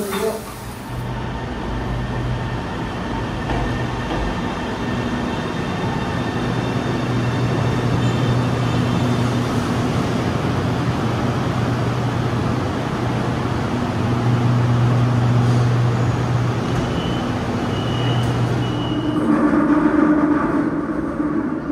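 Subway train running at speed, heard from inside the car: a steady rumble of wheels on rail with a low hum that comes and goes. A thin high tone sounds briefly about three-quarters of the way through.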